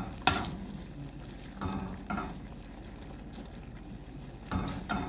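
Metal tongs clinking against a stainless steel pan as miki noodles are tossed and stirred: a sharp clink shortly after the start and a few more near the end, over a faint steady hiss from the cooking noodles.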